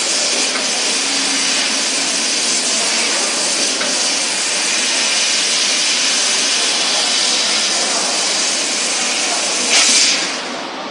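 Fiber laser cutting machine cutting 2 mm aluminium sheet: a loud, steady hiss of assist gas jetting through the cutting nozzle. It surges briefly near the end, then drops away as the cut stops.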